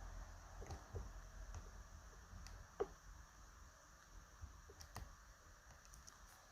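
Faint, scattered clicks and ticks of a lock pick and tension tool working the pins inside a TESA T-12 lock, the sharpest click about three seconds in.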